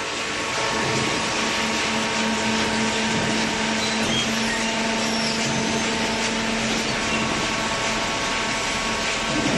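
Hydraulic scrap baler running: a steady mechanical drone with a constant low hum from its motor and pump.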